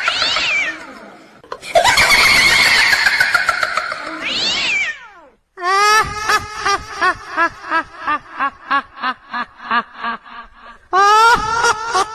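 Horror sound effects: two loud, harsh shrieks with falling pitch, then a long run of short, high cackling cries, about three a second and slowly fading, and another loud shriek near the end.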